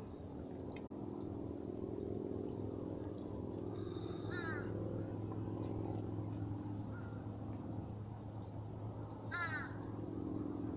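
Two short animal calls about five seconds apart, over a steady low hum.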